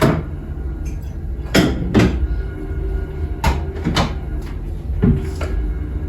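A series of sharp knocks and clunks of hard objects, about six in six seconds, some in quick pairs, over a steady low hum.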